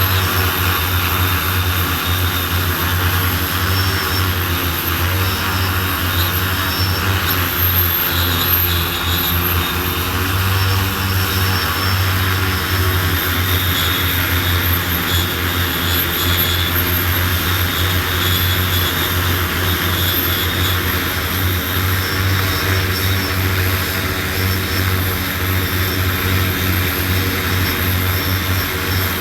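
Multirotor agricultural spraying drone's propellers running steadily in flight, a loud, even hum that holds level throughout.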